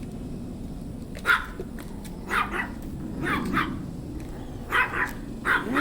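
Small dog barking in short, sharp yaps, in pairs and small groups, starting about a second in.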